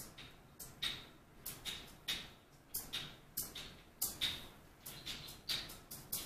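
Sharp, rattling percussive strokes in an uneven rhythm, two or three a second, from a small hand percussion instrument.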